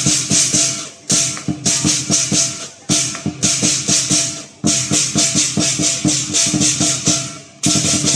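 Lion dance percussion: a drum with clashing cymbals, beating out fast repeated strikes in phrases with brief breaks between them.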